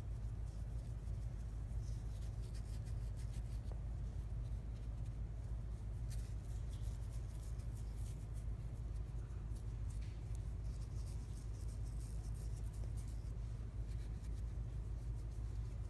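F1 Savannah cat purring, a steady low rumble, while fingernails scratch through its fur with a soft, dry scratching.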